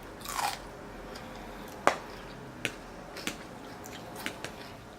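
Eating sounds at close range: a short rushing noise near the start, then scattered sharp clicks and light taps, the sharpest about two seconds in.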